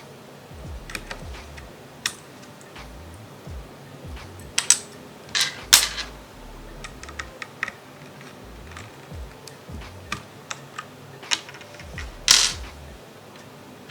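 Irregular plastic clicks and snaps from an RK G68 mechanical keyboard's parts being handled and worked on, with the loudest snaps about five to six seconds in and again near the end.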